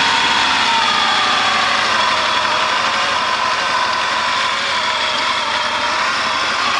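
A 1976 Laverda engine running steadily, its pitch wavering slightly and rising a little near the end.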